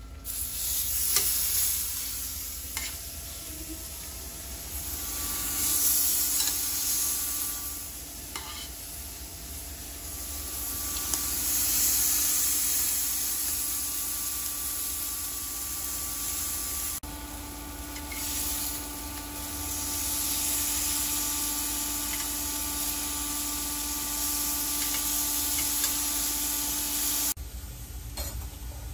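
Pork chops sizzling on the hot plate of an electric indoor grill as they are laid on with tongs, the sizzle swelling and easing several times. It cuts off abruptly near the end.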